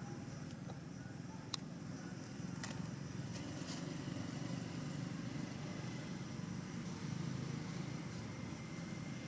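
Steady low background rumble, like distant traffic, with a few sharp clicks between about one and four seconds in.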